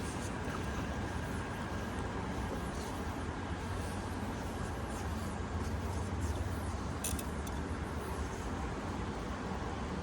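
Steady rush of a trout stream's flowing water with a low rumble underneath, and a couple of brief light ticks about seven seconds in.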